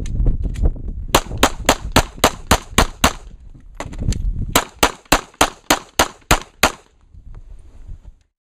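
Handgun fired rapidly in two strings of about eight shots each, three to four shots a second, with a pause of about a second and a half between them: sixteen shots in all on a USPSA stage.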